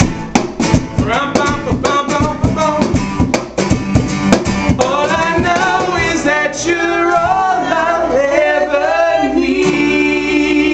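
Live acoustic band: voices singing over strummed acoustic guitar and cajon. About halfway the beat drops away and the voices hold long notes as the song closes.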